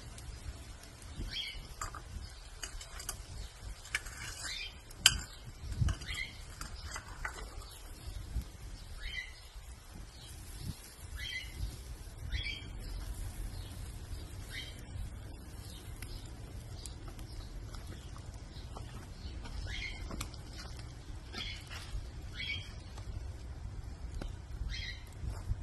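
A bird calling over and over in short chirps, roughly one every second or two, over a low steady rumble. A sharp crack is heard about five seconds in.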